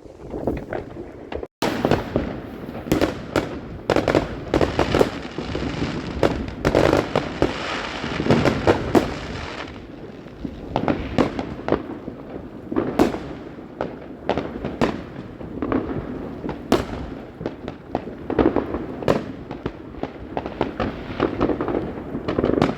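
New Year fireworks going off in quick succession: many sharp bangs over continuous crackling, densest in the first half.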